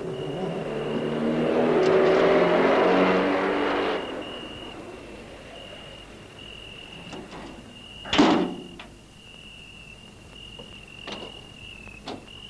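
Lorry engine revving up as the truck pulls away, dying down after about four seconds. Crickets chirp steadily throughout, and a single sharp knock sounds about eight seconds in, with fainter clicks near the end.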